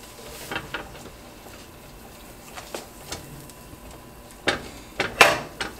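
Butter melting on a hot griddle as a stick of it is rubbed across the surface: a faint steady sizzle with scattered small pops and crackles, a louder cluster of them near the end.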